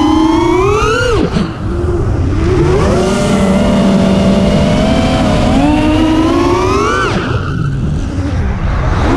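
FPV quadcopter's brushless motors and propellers whining under throttle. The pitch climbs and falls sharply about a second in, holds, climbs again to a sharp drop about seven seconds in, then climbs once more near the end.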